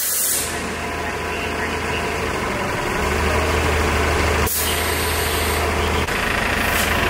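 City bus engine idling: a steady low hum, with a short click about four and a half seconds in.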